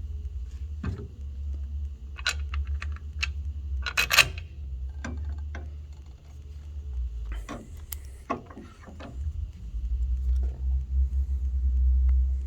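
Metal clinks and knocks as a new pulley and hardware are handled and fitted onto an elliptical trainer, the loudest about four seconds in and a cluster a few seconds later, over a steady low rumble.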